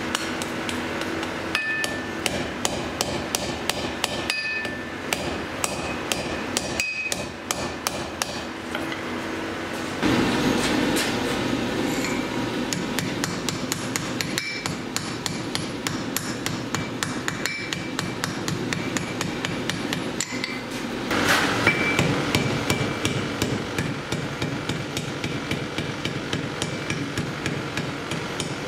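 Blacksmith's hammer striking hot steel on an anvil, in runs of about two to three blows a second with short pauses; some blows leave a brief ringing note. A steady rushing noise runs underneath and grows louder about ten seconds in.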